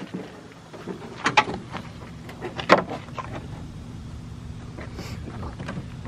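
A steady low hum with a few sharp clicks and knocks, from parts being handled while a truck's front end is taken apart to reach a headlight.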